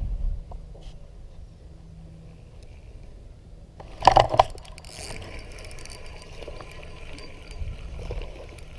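Spinning reel cranked fast as a hooked largemouth bass is reeled in, a steady whir with small clicking ticks, after a short loud burst about four seconds in at the hookset. Wind rumbles on the microphone at the start.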